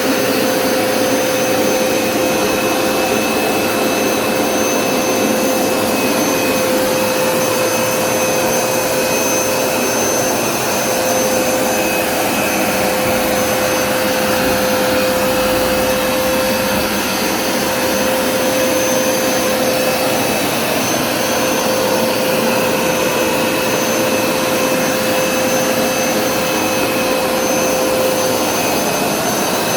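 Hoover SmartWash carpet cleaner running steadily, its suction motor giving a constant whine over a loud rushing noise.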